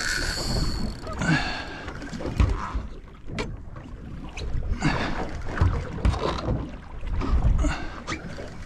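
Wind buffeting the microphone and water slapping against the hull of a small boat, in uneven gusts, with scattered knocks from handling the rod.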